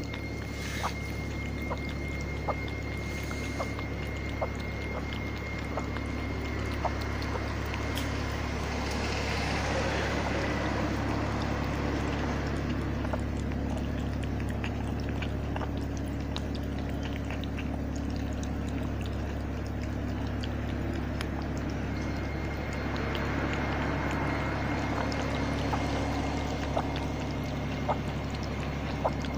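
Orange-and-white cat lapping water from a plastic basin: its tongue makes small wet clicks and splashes in the water. A steady low hum runs underneath.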